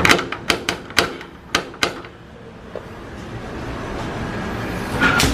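Metal door knocker rapped against a painted front door, about eight sharp knocks in the first two seconds, then a single click near the end.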